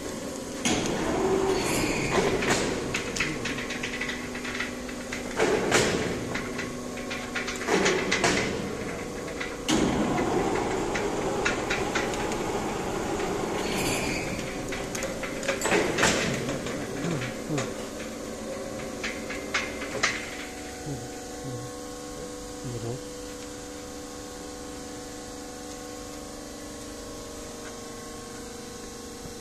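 Excavator-mounted rock drill rig working, with irregular metallic clanks and knocks over the steady hum of its engine and hydraulics. After about 20 seconds the knocking stops and the steady hum carries on more quietly.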